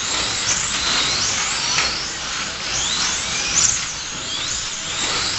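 1/24-scale slot cars racing: their small electric motors whine, several at once, rising and falling in pitch as the cars speed up and slow down, over a steady hiss.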